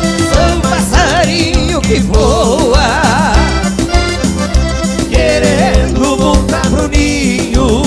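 Live band playing an instrumental break in a gaúcho dance song, with accordion carrying a wavering melody over a steady bass and drum beat.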